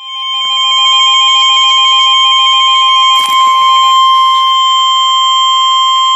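Emergency alert attention tone: a single steady high tone, the 1050 Hz warning alarm used by NOAA Weather Radio, which signals that a warning is about to be read. It comes on suddenly. For the first four seconds a faster pulsing beep runs over it, and there is a short knock about three seconds in.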